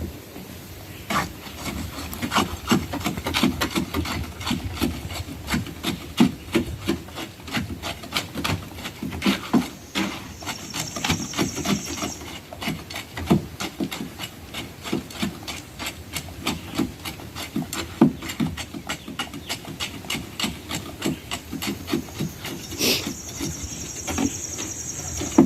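A long irregular series of knocks and scraping, two or three a second, with a short high hissing sound twice.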